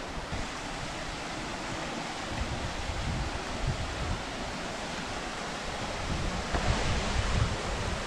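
Steady rush of running water, with wind rumbling on the microphone in gusts about two and a half seconds in and again near the end.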